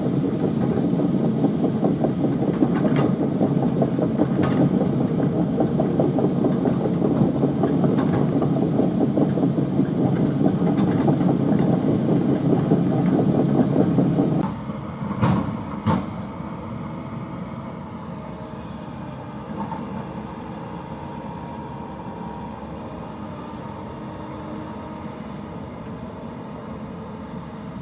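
Kobelco hydraulic excavator's diesel engine running hard under load, then dropping to a lower, steadier running about halfway through, with a couple of metal clunks around the change.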